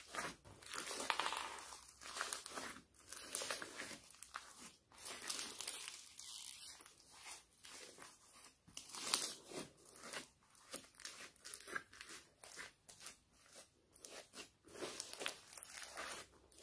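Hands squeezing and kneading a large lump of slime packed with foam beads (floam), giving a dense, irregular run of crunchy crackles.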